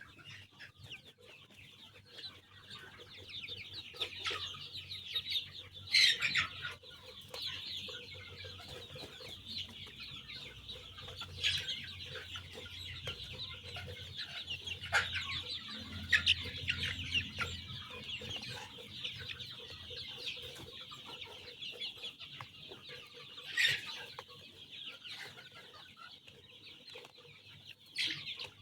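A large flock of young chicks peeping all at once: a dense, steady high chatter, with a few louder cheeps standing out here and there.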